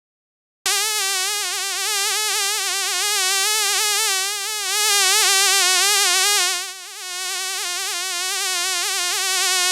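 A fly buzzing in flight: a steady wing-beat drone whose pitch wavers constantly, starting after a moment of silence and briefly fading about two-thirds of the way through.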